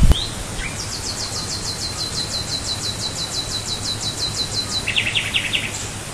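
A bird singing: a fast trill of high, downward-sweeping notes, about seven a second for some four seconds, then a short run of lower notes near the end, over a steady background hiss.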